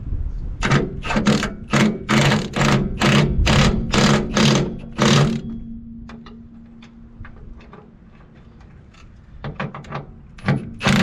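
Hammer blows on steel, about three a second for several seconds, then a pause and a new run of lighter then heavier blows near the end, the metal ringing after each run.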